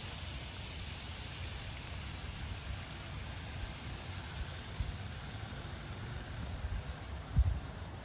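Battery-powered JAKKS Pacific PowerTrains toy diesel locomotives, several trains at once, running on plastic track: a steady whirring hiss from their small motors and wheels over a low uneven rumble, with a single thump about seven seconds in.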